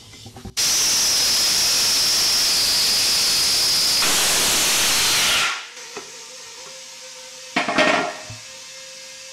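Loud hiss of compressed air rushing into a freshly mounted ATV tire to seat its beads. It starts abruptly, runs steadily with a high whistle for about five seconds, then fades out; a short noise follows a couple of seconds later.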